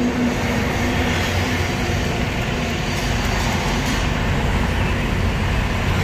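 Tata Vista's diesel engine idling steadily with the bonnet open while its fuel-injection pump setting is adjusted.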